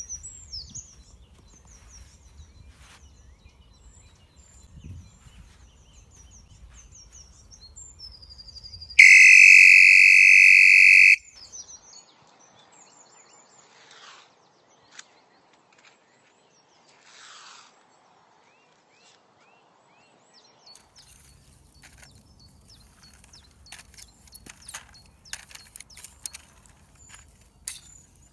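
Birds singing, with many small chirps and a low rustle of wind or handling. About nine seconds in, a loud, steady two-second burst of hiss with a high tone cuts in and out abruptly. In the last several seconds there is rustling and a run of sharp clicks as the phone is handled close to the ground.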